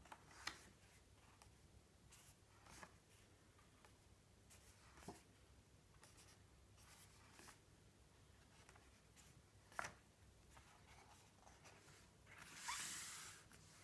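Pages of a printed book being turned by hand: a few soft paper taps and flicks, then one longer swish of a page sweeping over near the end.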